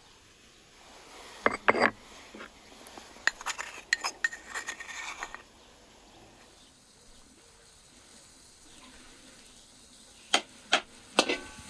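A wooden spoon tapping and scraping against clay spice bowls and a wooden plate as spices are spooned out, a run of sharp clicks in the first half. Near the end, a few sharp clinks of a utensil against a large steaming cooking pot.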